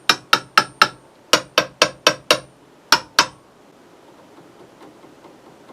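Sharp knocks on the Pioneer SX-950 receiver, about four a second in three quick runs (four, five, then two) over the first three and a half seconds. This is a tap test for an intermittent connection behind occasional signal glitching; the glitch does not respond to the knocking.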